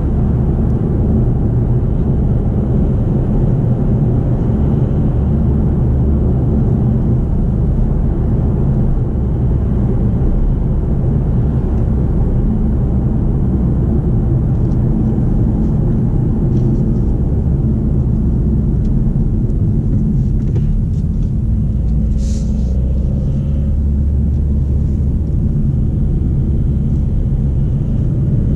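Steady in-cabin drone of the Kia XCeed's 1.6 CRDi four-cylinder diesel and road noise while driving at an even pace, with a short click about three quarters of the way through.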